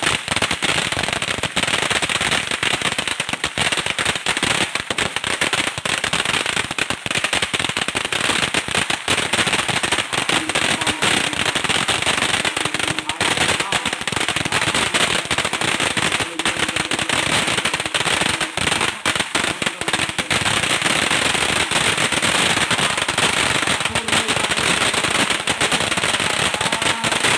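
A long string of firecrackers going off in rapid, unbroken bangs with no let-up.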